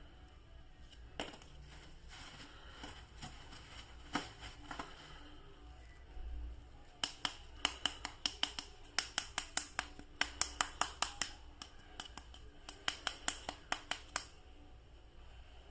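Quiet, sharp clicking from a toy action figure being handled: a few scattered clicks, then from about seven seconds in, rapid runs of several clicks at a time until shortly before the end.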